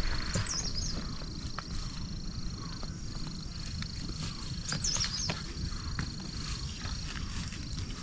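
A steady high-pitched insect trill, with a bird's short chirping call twice, about four seconds apart. Scattered footsteps crunch on dry grass over a low rumble of wind.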